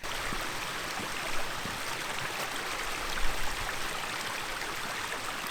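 A mountain stream running steadily, an even rushing water noise.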